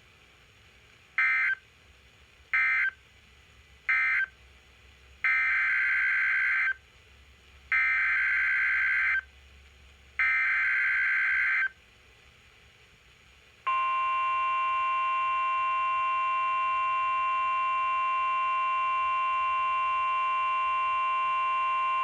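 NOAA Weather Radio Emergency Alert System (SAME) data bursts and alert tone: three short bursts, which mark the end of the first warning, then three longer bursts carrying the header of the next warning. From about 14 seconds in, the 1050 Hz warning alarm tone holds steady for about nine seconds.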